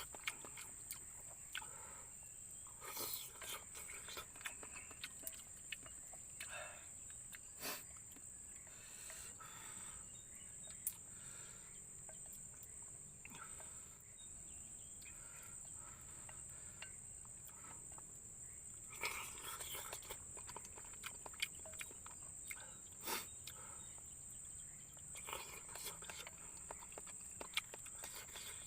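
Steady high-pitched insect drone of forest ambience at dusk, with scattered small clicks and short rustles from someone eating.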